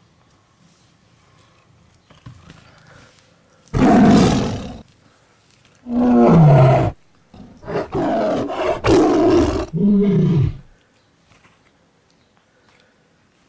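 Domestic cat yowling and growling in three loud, harsh outbursts, the last and longest about three seconds, some dropping in pitch, as it attacks and bites at a person's arm.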